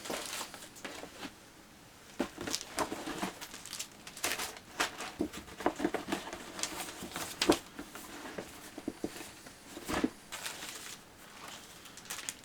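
Plastic model kit handled on a table: bagged parts and packaging crinkling and rustling, with irregular light clicks and knocks of plastic pieces.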